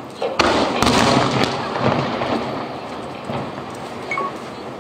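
Aerial firework shells bursting: two sharp booms less than a second in, about half a second apart, then a long rumble that slowly fades, with a few smaller pops later on.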